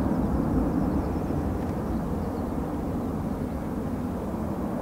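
Boeing 747-400's four jet engines rumbling as the airliner climbs away after a touch-and-go, a deep steady roar that slowly fades as it recedes.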